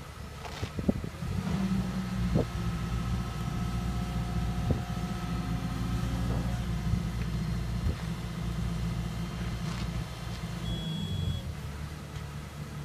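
Tracked excavator's diesel engine running steadily while it holds a steel trench box on its lifting chains, with several sharp knocks along the way and a brief high beep near the end.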